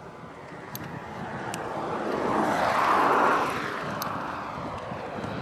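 A vehicle passing by: a noisy rumble that grows to its loudest about three seconds in, then fades away.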